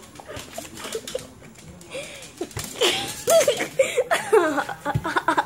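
A person giggling and laughing in short bursts, rising to a run of wavy laughs in the second half, with scattered clicks and handling noise.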